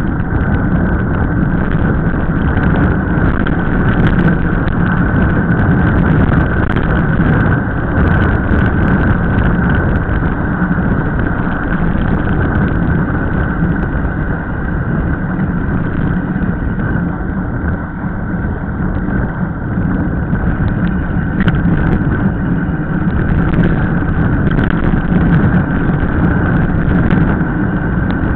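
Loud, steady rush of wind on the microphone and tyre noise from a mountain bike descending fast on rough asphalt, with scattered clicks and rattles from the bike.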